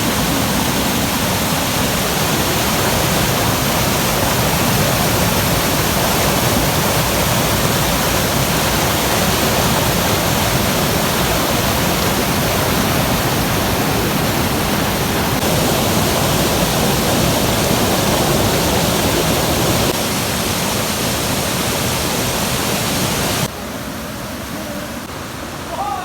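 Waterfall, close by: a dense, steady rush of falling water that turns suddenly quieter near the end.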